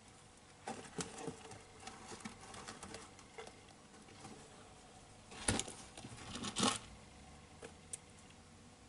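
Irregular light clicks, taps and scratching on a clear plastic tub as leopard geckos are fed from tweezers. The two sharpest clicks come about five and a half and six and a half seconds in.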